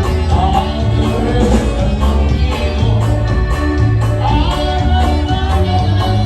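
Loud music with singing over a heavy bass and a steady beat.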